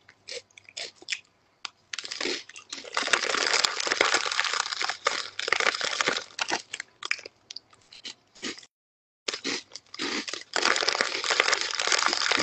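Chips being crunched and chewed close to the microphone, with a few sharp separate crunches at first. After about two seconds comes long, dense crinkling of a foil chip bag as a hand rummages in it; this stops briefly around the middle and then starts again.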